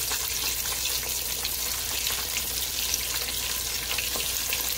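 Flour-coated chicken pieces deep-frying in a pot of hot oil: a steady crackling sizzle dotted with fine pops.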